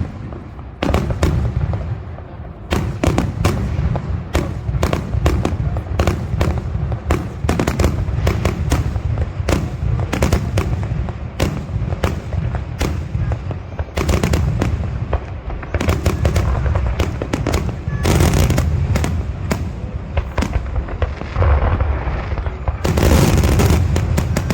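Aerial fireworks bursting in quick succession: dozens of sharp bangs over a booming low rumble, with two denser spells of bangs and crackle late on.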